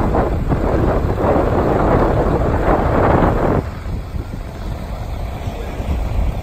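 Komatsu construction machine's diesel engine running steadily, with wind buffeting the microphone. The sound drops noticeably about three and a half seconds in, leaving a quieter low rumble.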